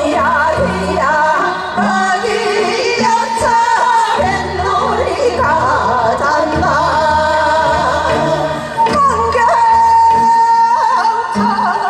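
A group of women singing a Korean folk song into microphones over amplified accompaniment with steady low bass notes. The vocal line wavers and bends with heavy ornament, and a long high note is held from about three-quarters of the way through.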